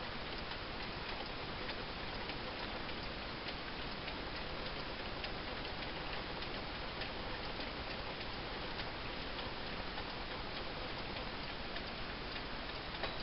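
Pendulum wall clock ticking steadily, faint regular ticks over a steady background hiss.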